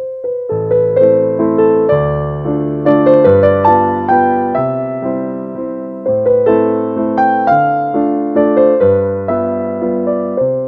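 Background music on electric piano: a gentle melody over chords and low bass notes, each note struck and then fading.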